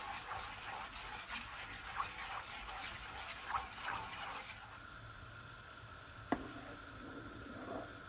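Wooden spoon stirring bubbling jaggery syrup in a non-stick pan: wet sloshing and popping with irregular spoon scrapes, busier in the first half. A single sharp knock of the spoon comes about six seconds in.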